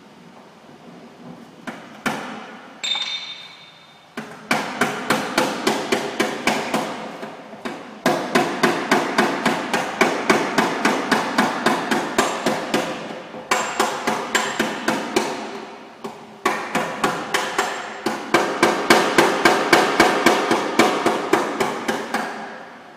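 Hammer tapping out a dent in the sheet-metal front left fender of a Volkswagen Golf, at the wheel arch. A few separate knocks come first, one with a brief metallic ring, then runs of quick blows at about four a second, broken by short pauses.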